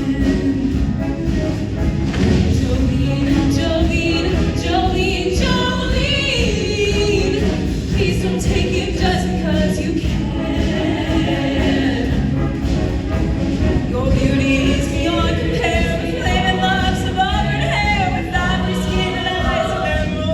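Show choir singing in parts over instrumental accompaniment, the voices moving through a melodic line.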